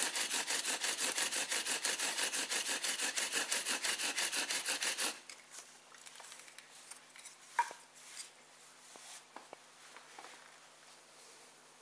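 Bow drill with a twisted bast cord spinning a wooden spindle in a wooden hearth board: a fast, even back-and-forth rasping of wood grinding on wood, several strokes a second, as the friction builds hot dust toward an ember. The rasping stops abruptly about five seconds in, followed by faint handling knocks and rustles.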